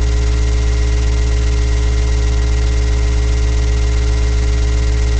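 Loud steady low electrical hum with a stack of even overtones and constant hiss, the recording's own noise picked up by a webcam microphone.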